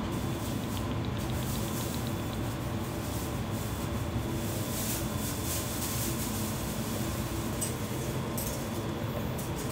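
Steady low machine hum with a faint high whine, broken by a few light clicks and clatters.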